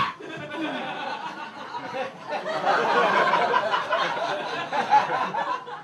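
Live audience laughing, many voices together, dying away near the end.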